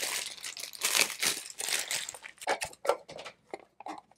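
Mystery-box packaging being torn open and crumpled by hand: a dense run of crinkling, tearing rustles for about two seconds, then sparser separate crackles.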